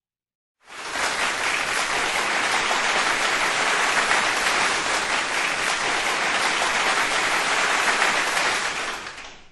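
Applause from a crowd: steady, dense clapping that starts about a second in and fades out near the end.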